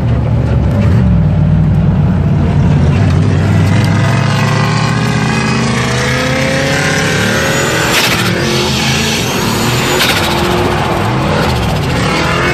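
Turbocharged Ford Mustang's engine heard from inside the cabin, running hard under drift driving, its pitch rising and falling as it revs up and down.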